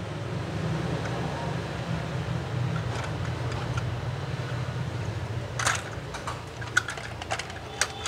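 Steady low hum, with a few sharp clicks and clatters in the second half as a die-cast toy fire truck is lowered into a plastic basket and knocks against the other toys.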